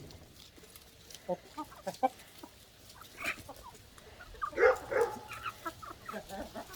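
Chickens clucking: a series of short, scattered calls, loudest about four and a half seconds in.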